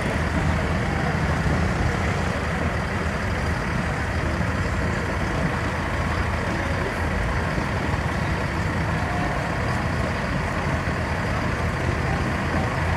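Motor vehicles' engines running as they drive slowly past, a steady low engine sound with no sharp events.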